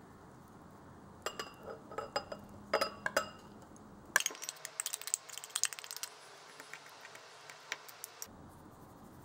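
A metal fork scraping and tapping inside an opened tin can, giving short ringing clinks, then a quicker run of light clicks and scrapes of the fork against a small glass bowl as canned tuna is flaked into it.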